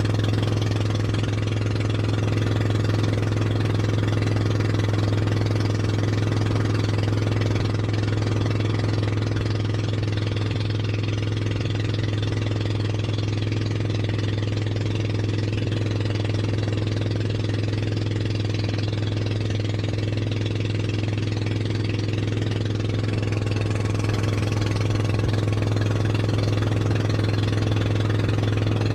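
A small motorboat's engine running steadily while underway, a constant low hum with overtones that holds even throughout.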